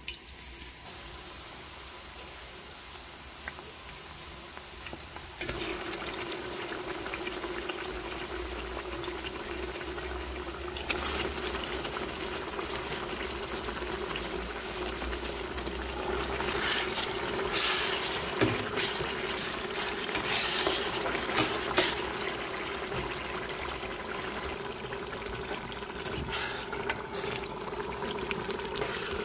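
Liquid pouring and bubbling in a cooking pot. A steady low hum joins about five seconds in, and a few sharp knocks come a little past the middle.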